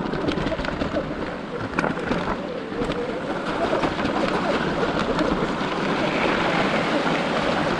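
Dirt bike tyres splashing and churning through a shallow water crossing, a loud continuous rush of water and tyre noise with a couple of sharp knocks, and wind buffeting the microphone.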